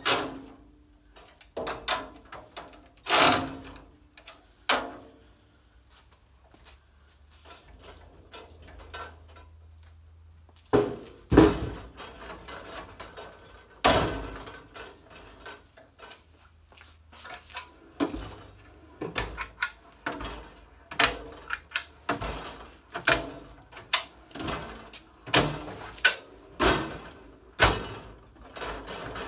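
US General steel tool cart being handled: a long run of sharp metal knocks, clacks and clunks, with drawers sliding open and shut. The knocks come thicker and faster in the second half.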